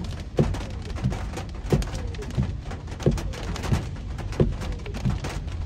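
Car windscreen wipers sweeping back and forth, with a thump at each end of the stroke about every two-thirds of a second, over the steady patter of heavy rain on the car's glass and roof.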